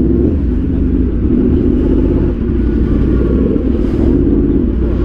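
Yamaha R1's inline-four engine running at low, fairly steady revs, with a low rumble underneath.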